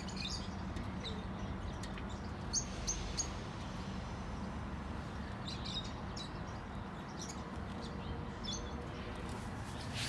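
Small birds chirping now and then, short high chirps in scattered clusters over a steady low background hum.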